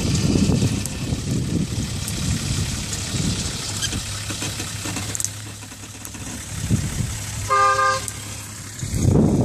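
Nissan Patrol Y60's TD42 4.2-litre straight-six diesel engine running as the vehicle crawls over a steep slope: a rough low rumble at first, settling to a quieter, steadier hum. A short horn toot about seven and a half seconds in.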